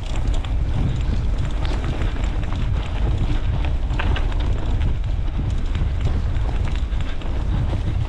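Wind buffeting the microphone: a loud, steady low rumble with crackling.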